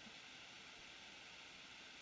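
Near silence: faint steady hiss of the recording's room tone.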